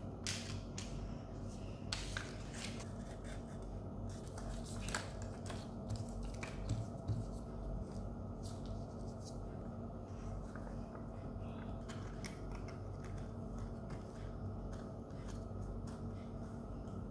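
Hands handling and pressing folded paper pieces as they are glued together: irregular rustles, small clicks and taps over a steady low hum.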